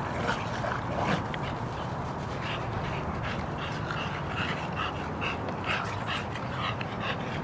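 Bully-breed dogs at rough play, panting hard: short quick breaths repeat several times a second from a couple of seconds in, over a steady low rumble.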